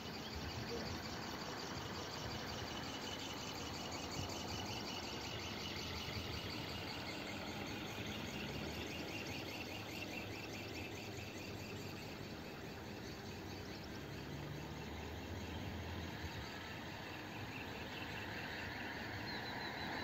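Outdoor ambience: insects trilling in a rapid, steady pulse over a low, even hiss.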